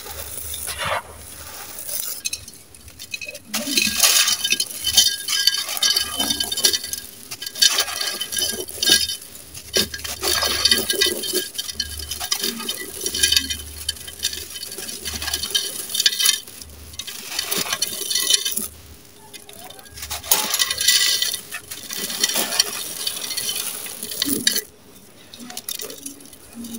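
Dry, gritty sand-cement with small stones crushed and crumbled between bare hands, the grains and pebbles falling and pattering into a pot. The sound comes in irregular bursts of crunching and rattling clicks, with short quieter pauses between handfuls.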